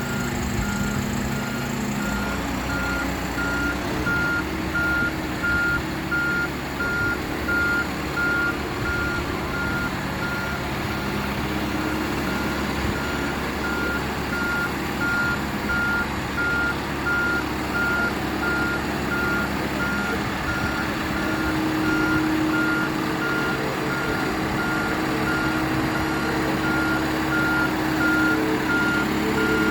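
Vehicle reversing alarm beeping at an even pace throughout, with the vehicle's engine running underneath.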